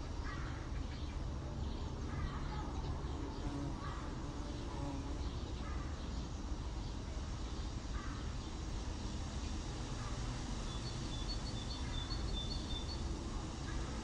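Outdoor ambience picked up by a NEEWER CM28 wireless mic in stereo mode with a furry windscreen: a steady low rumble with bird calls every second or two, and a quick run of high chirps about eleven seconds in.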